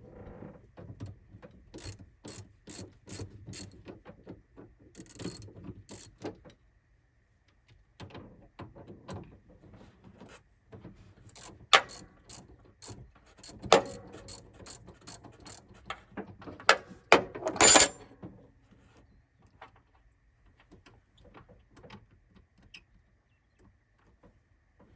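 Hand tools clicking and knocking against metal parts. A run of evenly spaced clicks comes early, and the sharpest, loudest knocks come in the middle.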